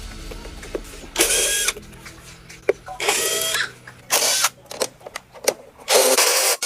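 A power tool run in short bursts, four times, each burst about half a second long, with light clatter of work between them.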